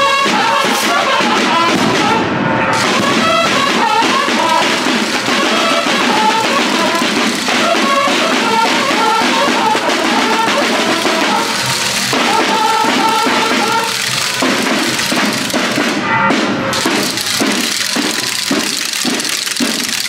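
Street marching band playing: brass horns carry a melody over snare drums. The horns stop about three-quarters of the way through, leaving only the drums beating a steady rhythm.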